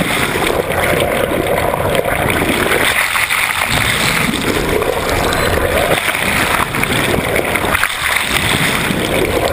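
Water rushing and churning past an underwater camera as it moves through the sea: a loud, steady, noisy wash with no distinct calls or tones.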